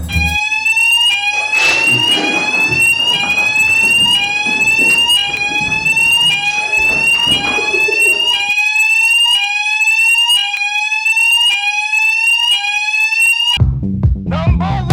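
Electronic fire alarm sounder sweeping, its tone rising and then dropping back about once a second, over and over. Other sounds mix underneath for the first half, then the alarm sounds alone until it cuts off abruptly near the end as music comes in.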